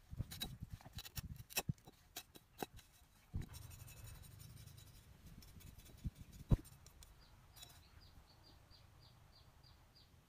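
Knife blade cutting and scraping a green bamboo stem: a quick run of sharp clicks and scrapes in the first few seconds, and two sharp knocks past the middle. In the second half a small bird calls over and over, a short falling chirp about four times a second.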